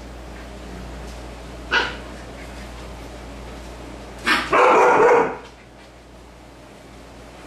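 Adult Siberian husky barking at playing puppies: one short bark about two seconds in, then a louder, drawn-out bark lasting about a second near the middle.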